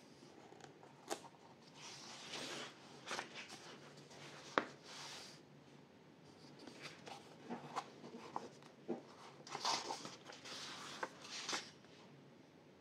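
Faint paper rustling as the pages of a paperback colouring book are turned and pressed flat by hand, twice, with a few sharp clicks of fingers and paper.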